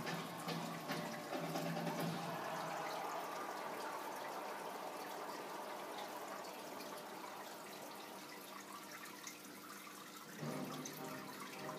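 Aquarium water noise: air bubbles rising through the tank and water trickling, a steady splashing hiss that picks up a little about ten seconds in.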